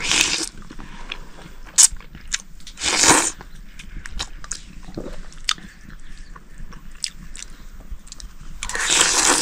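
Close-up crunching and chewing of food, with scattered small crackles and three louder crunchy bursts: at the start, about three seconds in, and near the end.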